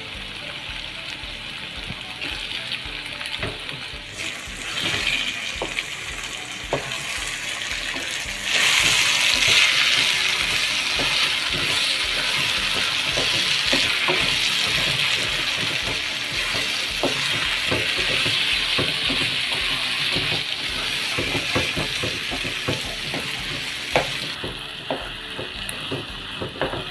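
Okra and egg sizzling in oil in a wok as a wooden spatula stirs and scrapes through it, with many light taps. The sizzle grows much louder about eight seconds in and eases off again near the end.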